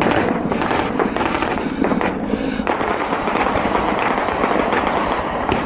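Sustained rapid gunfire, many shots crackling close together without a break, with a steady low hum beneath it for the first couple of seconds.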